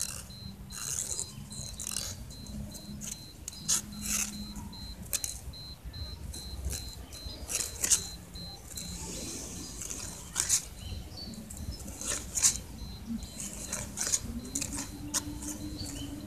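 Irregular light clicks and scrapes of a thin stick tapping and dragging on concrete steps while a tabby cat swats at it with its paws.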